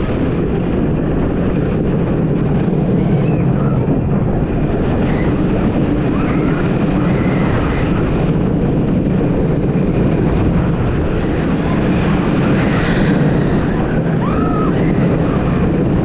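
Steady rushing wind noise on the microphone and rumbling of a wooden roller coaster's train running along the track during the ride.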